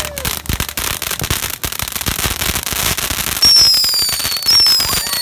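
Ground fireworks: fountains spraying sparks with dense, continuous crackling. Two whistling fireworks sound late on, each a high falling whistle about a second long.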